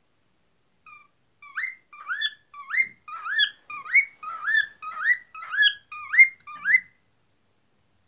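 Cockatiel whistling a run of short rising notes, about two a second, for about six seconds.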